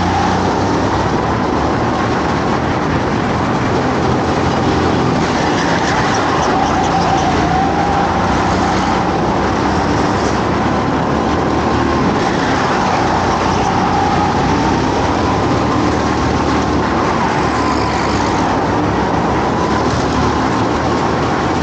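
Racing go-kart running flat out on track, its motor note rising and falling as it speeds up and slows for the corners, over a constant rush of noise.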